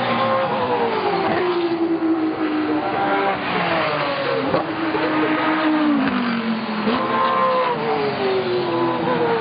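GT race car engine running hard, its pitch falling slowly and then jumping back up, about three times.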